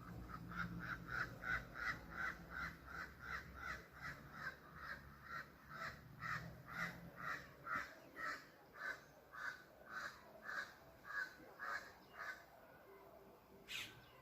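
A bird giving a long, even series of short harsh calls, about two or three a second, which stops about a second before the end.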